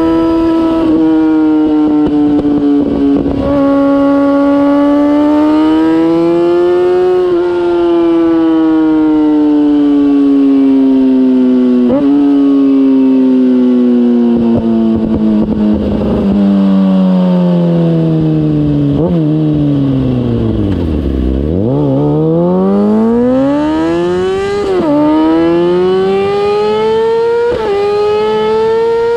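2004 Kawasaki ZX-6R's inline-four engine through a MIVV GP exhaust, heard from the rear of the bike while riding. The engine note falls slowly as the bike slows, with a few brief breaks, reaches its lowest about two-thirds of the way in, then rises quickly under acceleration with two upshifts near the end.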